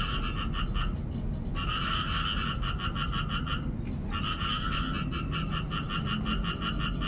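A frog calling in trains of rapid pulses, about seven a second, each train lasting a couple of seconds with short pauses between.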